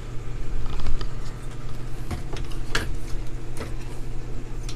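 Scattered light clicks and knocks as a CRT TV's circuit board and parts are handled and refitted into the chassis, over a steady low hum.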